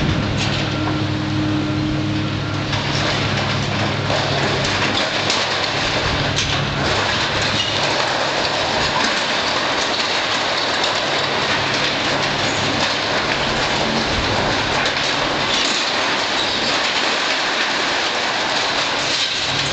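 Building demolition by excavator: a continuous crunching and rattling of wood and sheet-metal debris with a few sharp knocks, over the low hum of the machine's diesel engine in the first few seconds and again near the end.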